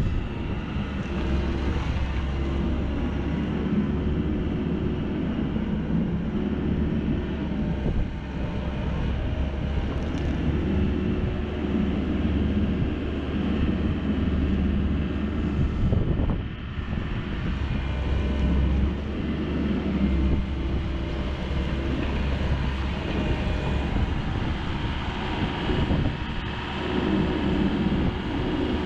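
Komatsu PW98MR-6 wheeled excavator's diesel engine running steadily under hydraulic load while the boom, stick and tilting bucket are worked. The engine note dips briefly about 8 seconds in and again about 16 seconds in.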